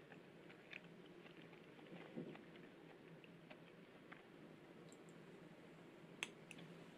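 Faint ramen-eating sounds: noodles lifted with chopsticks and eaten, with scattered light clicks of chopsticks and a spoon against a ceramic bowl, and one sharper click about six seconds in.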